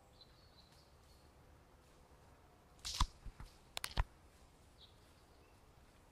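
A handful of sharp knocks and clicks close to the microphone, bunched between about three and four seconds in, as the camera is handled and jostled. Faint high bird chirps sound in the quiet woodland background.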